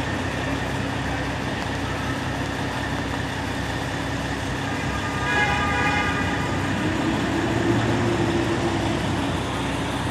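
Steady city street traffic noise with an engine running, and a brief high-pitched tone about five and a half seconds in; the engine sound grows somewhat louder for a couple of seconds after it.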